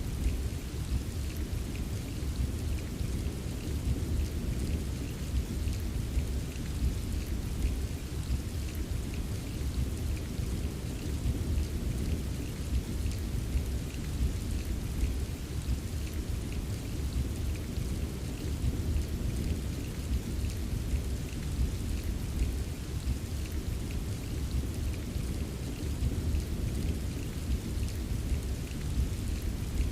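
Rainstorm ambience: steady rainfall with fine patter of drops over a continuous low rumble of thunder, even throughout with no single clap.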